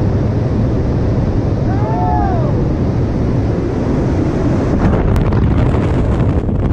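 Steady, loud rush of wind buffeting the microphone, as in a parachutist's freefall. About two seconds in, a brief tone rises and falls over it.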